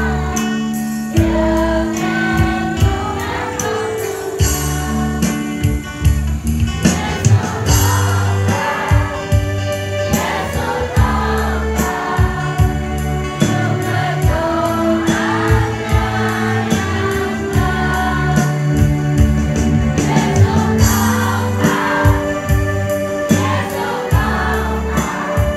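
Children's choir singing a hymn together, with a steady beat behind the voices.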